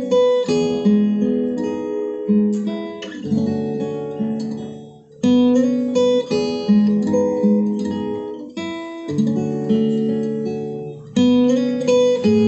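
Solo acoustic guitar playing an instrumental piece, melody notes over ringing bass notes. Each phrase fades away, and a fresh, louder chord comes about five seconds in and again near the end.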